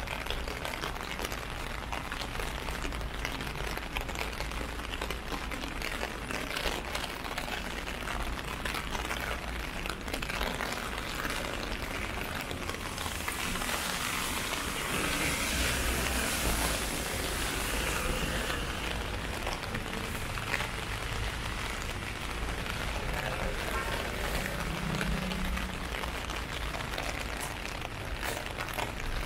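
Steady rain falling on a transparent umbrella and the wet street. The rain swells louder for several seconds in the middle.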